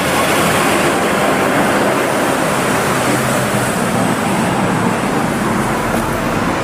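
Bulk tanker truck with trailer driving past on a road: a steady rush of engine and tyre noise.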